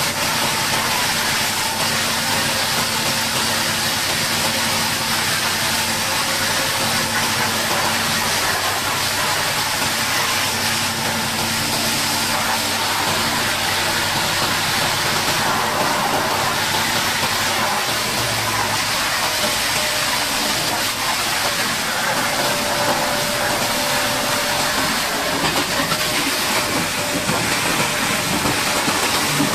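High-pressure water jet hissing steadily as it blasts a bulldozer, over a steady engine hum whose pitch shifts about two-thirds of the way through.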